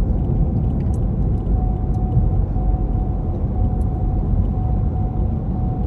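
Steady low rumble of car road and engine noise inside the cabin, with a faint thin whine running through it.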